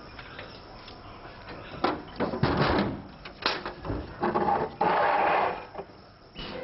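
A window shutter being closed by hand, with a run of sharp knocks and rattles from its metal latch and frame, then about a second of steady noise as it swings shut.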